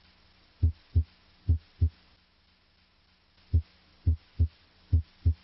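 Heart sounds heard through a stethoscope's bell at the cardiac apex: deep lub-dub pairs (S1 then S2), about 70 beats a minute. There is a pause of about a second and a half near the middle.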